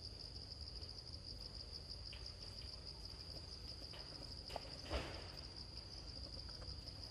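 A steady, high-pitched, slightly pulsing insect chorus like crickets or cicadas, with two brief rustling crackles about four and a half and five seconds in, the second louder.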